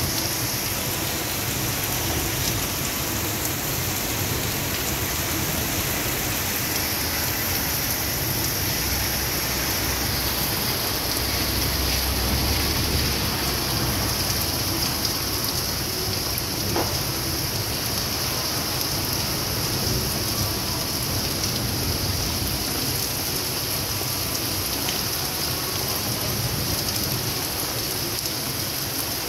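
Steady rain falling on a street and pavement, a constant hiss, with a low rumble swelling for a few seconds around the middle.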